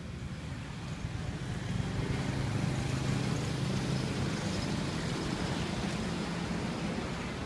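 Street traffic passing: motorcycles and a small pickup truck driving by, their engine hum swelling about two seconds in and holding steady.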